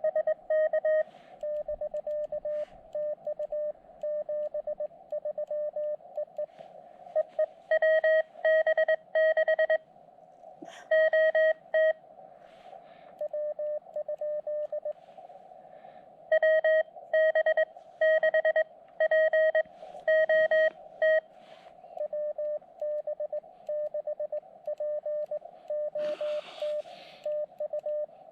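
Morse code (CW) from an Elecraft KX2 transceiver: a single tone of about 600 Hz keyed in quick dits and dahs, with louder stretches trading off against softer ones as in a back-and-forth contact exchange on HF. A brief hiss comes near the end.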